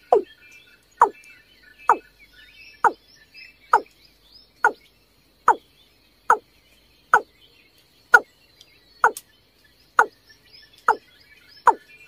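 Watercock calling: a series of short, deep notes, each dropping in pitch, repeated evenly about once a second, with faint high twittering of small birds behind them in the first half.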